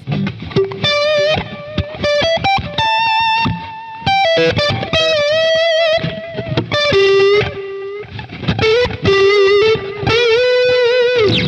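Electric guitar played through a Boss Katana 100 amp, a lead phrase of single notes with string bends and wide vibrato on the held notes, lightly overdriven, with the amp's analog-type delay switched on. Near the end a long held note bends down and dies away.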